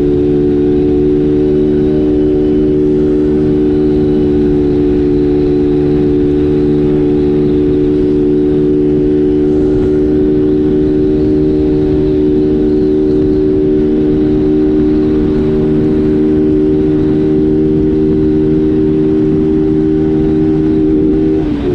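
A motor running at a constant speed: a steady hum of several held tones, with a brief wobble in pitch near the end.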